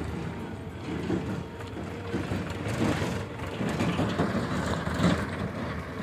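Heavy diesel engine of a mobile crane running under load while it holds a railway coach aloft: a steady low rumble with uneven louder surges.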